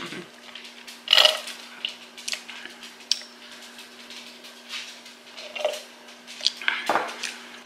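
Ice cubes clinking and rattling in a plastic tumbler as it is tipped up, with sips through a straw: short clicks and clatters, the loudest about a second in and again near the end.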